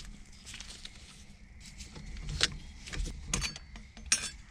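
Scattered small metallic clicks and clinks of an Allen key working on a steering wheel's Allen bolts, irregular and a second or so apart, the sharpest one shortly before the end.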